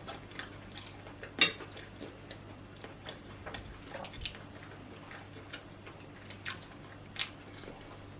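Scattered light clicks and taps of cutlery against a plate during a meal, with soft eating sounds between them; the sharpest taps come about a second and a half in and twice near the end.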